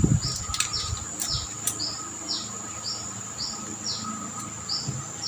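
A small animal chirping steadily in the background: short, high chirps repeating about two or three times a second. A few light clicks and low handling knocks come in the first two seconds, as a marker pen is worked over a metal engine crankcase.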